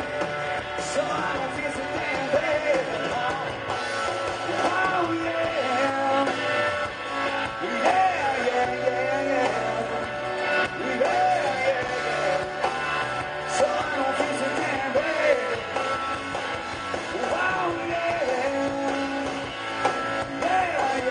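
Live blues-rock band playing an instrumental stretch: electric guitar lead with bending notes over bass guitar and drums.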